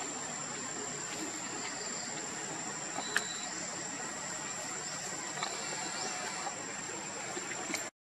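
Steady high-pitched insect drone over a faint hiss, with a few faint ticks, broken by a brief dropout right at the end.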